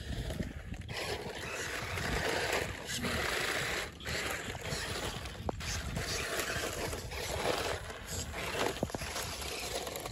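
Toy 4x4 RC rock crawler trucks driving over wet mud: small electric motors and gears whirring while the tyres churn through the mud, uneven in level, with a few brief clicks.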